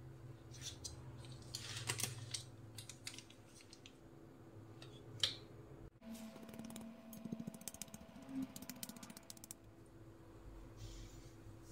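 Pepper mill grinding black pepper: a run of rapid small ratcheting clicks lasting about three seconds, a little after the midpoint. Before it come a few faint clicks and scrapes of food being handled on the plate.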